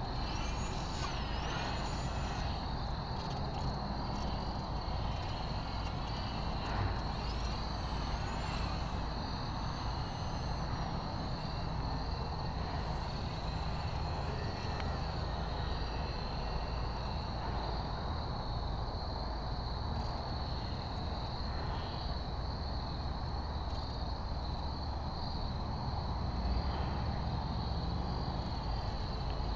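Steady outdoor background noise: an even low rumble with a constant high-pitched whine over it, and a few gliding chirps in the first several seconds.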